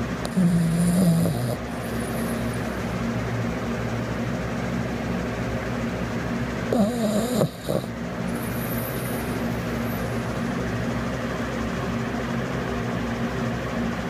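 Small terrier snoring in her sleep, with two louder snores about a second long, one near the start and one about halfway, over a steady low hum.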